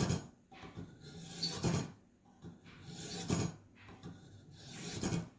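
A Ka-Bar blade drawn through the Warthog sharpener's 1000-grit hones: four rasping strokes about a second and a half apart, each swelling to a hiss and then stopping.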